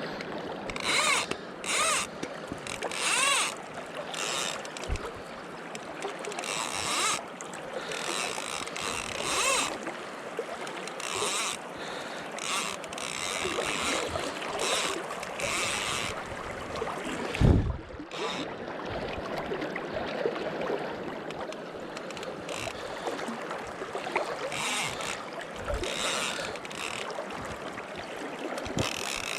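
Steady rushing of river water with gusts of wind buffeting the microphone, and a single thump about halfway through.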